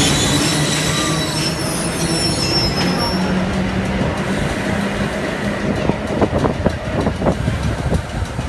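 Vintage BRT BU wooden gate-car subway train pulling away and accelerating: wheels rumbling and clattering over the rail, with a low hum from its DC traction motors that rises in pitch. The sound fades as the train draws off.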